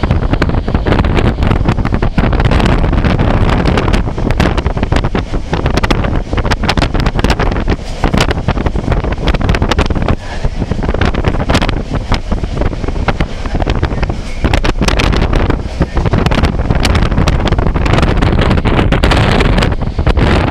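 Loud, gusty wind buffeting the microphone, with constant irregular thumps and crackle over a heavy low rumble.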